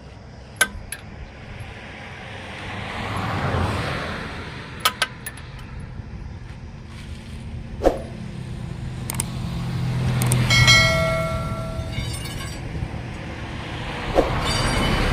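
Motor vehicles passing, two swells of rumble that rise and fall, with an engine humming steadily in between and a brief high squeal-like tone about ten seconds in. Sharp metallic clinks and knocks, typical of tyre tools, ring out a few times.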